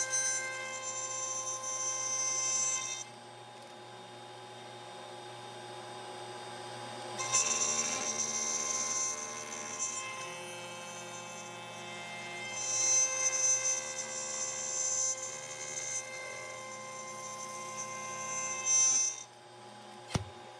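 OneInfiniti CNC router spindle whining steadily while it cuts a wooden tray, growing louder in several spells of a few seconds each as the bit bites into the wood. The sound drops away near the end with a click as the program finishes.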